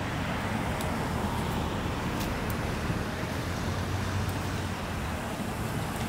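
Steady rumble and hiss of road traffic, with a few faint high ticks.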